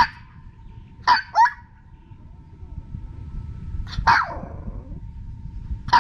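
A Maltese dog barking in short sharp yaps, about five of them spaced irregularly, two in quick succession about a second in. It is barking at being left alone while its owner steps away.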